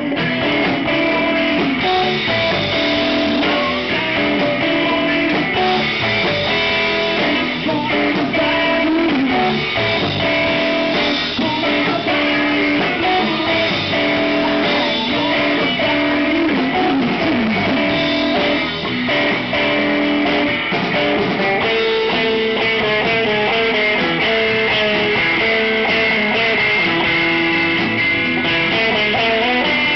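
Live blues band music: electric guitars playing over drums, the lead guitar bending notes now and then.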